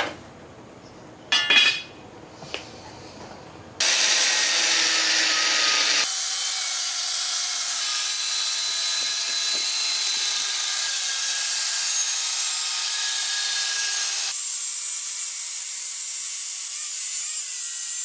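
Angle grinder with a cut-off disc slicing through a rusty steel leaf spring. It starts about four seconds in, after a couple of knocks, and runs as a steady loud whine and hiss, turning a little quieter and thinner near the end.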